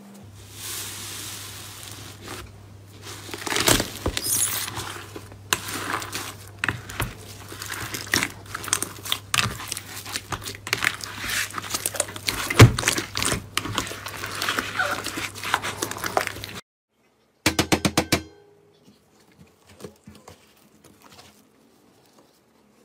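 Slime being pressed, squeezed and kneaded by hand: wet crackling, squelching and sharp air-pops, with a low steady hum under it. The sound cuts off about 16 seconds in; a brief run of rapid clicks follows, then faint crunching of foam-bead slime (floam).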